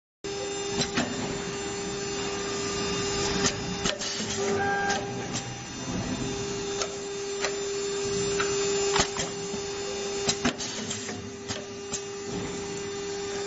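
Automatic door-handle milling, drilling and pin-punching machine running: a steady motor hum with a held tone. It is broken at irregular moments by sharp clicks and knocks as its air cylinders and punching station work, about a dozen in all.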